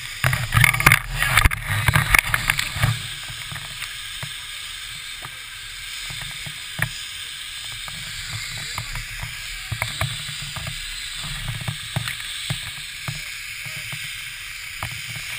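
Wind buffeting a pole-mounted action camera's microphone, with clusters of sharp knocks and clicks, heaviest in the first three seconds and scattered after.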